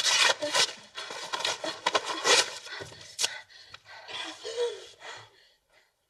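Wallpaper being clawed and torn from a wall by hand in rough rasping rips, mixed with a girl's panting and a short whimper. It stops about five seconds in.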